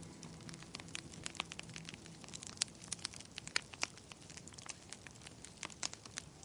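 Wood fire crackling in a fireplace, with irregular sharp pops and snaps.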